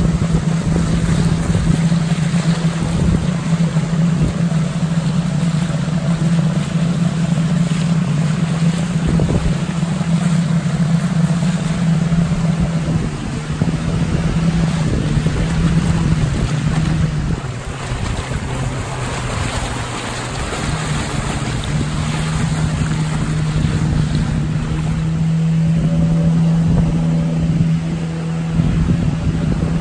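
Boat's outboard motor running steadily under way upstream, with water rushing past the hull and wind on the microphone. The engine note drops for a few seconds just past the middle, then picks back up.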